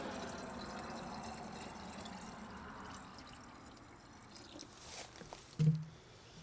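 Liquid pool shock (12.5% chlorine) being poured into a garden sprayer already half full of water, a pouring, trickling sound that fades away over the first few seconds. A short low sound near the end.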